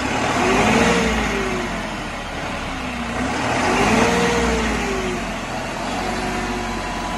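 New Holland 5620 TX tractor's common-rail diesel engine revving up and dropping back twice, about three seconds apart.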